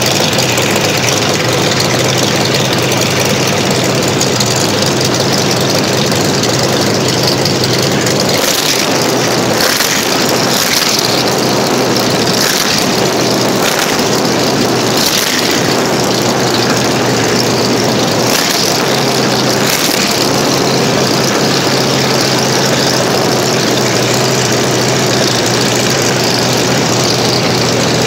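Jacobs radial aircraft engine in a 1939 Plymouth truck running loud and steady, with a stretch of uneven louder bursts in the middle.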